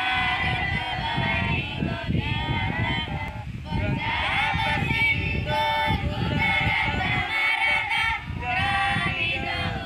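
A group of school students singing together in unison, held sung notes with many voices, over a low rumble.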